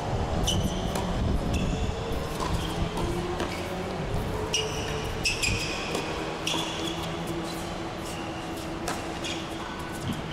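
Tennis rally on a hard court: a series of sharp racket hits and ball bounces at irregular intervals, several of them followed by short high squeaks, over a steady low hum.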